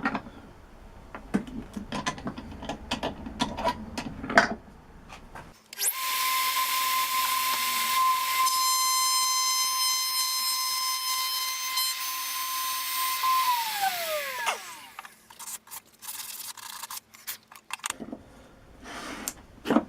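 Router motor switched on, running at a steady high whine for about seven seconds while cutting a T-track slot in the table top, then switched off and winding down with a falling pitch. Clicks and knocks of the tool and workpiece being handled come before and after.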